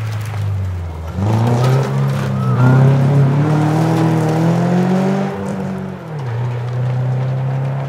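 Rally car engine accelerating hard past on a gravel stage: its pitch climbs for about four seconds, drops suddenly around six seconds in, then holds steady as the car moves off.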